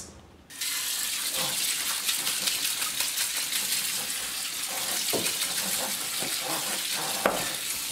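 Kitchen tap water running onto soaked chickpeas in a stainless-steel mesh colander, rinsing them. The flow starts about half a second in and holds steady, with a short sharp click near the end.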